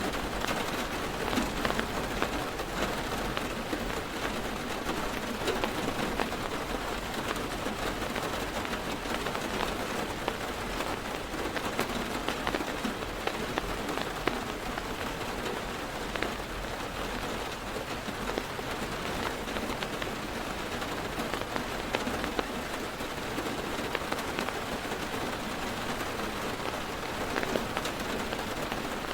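Heavy rain drumming on a car's roof and window, heard from inside: a steady dense hiss speckled with countless sharp drop ticks.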